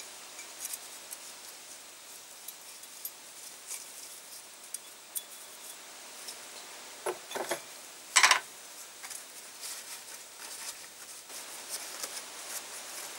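Small metallic clicks and ticks of a thin piston-ring expander strip being worked out of a piston's ring groove by hand, with a louder short clatter a little past halfway.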